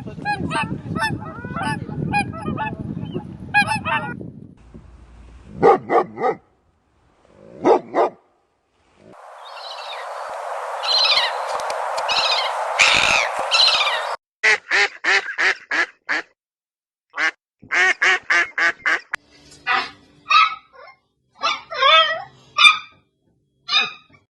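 Birds calling: runs of short, repeated calls in several separately cut clips, one of them over a steady noisy background.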